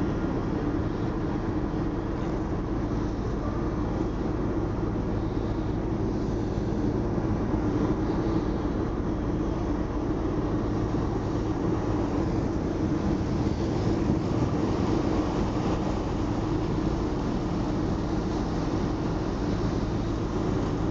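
The ferry Félix-Antoine-Savard's engines running under way, an even, unchanging drone with a steady hum beneath it.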